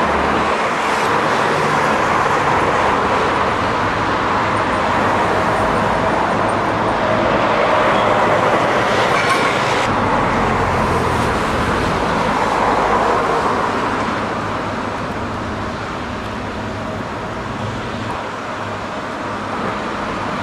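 Steady construction-site noise: a long-reach demolition excavator's diesel engine running, mixed with passing road traffic.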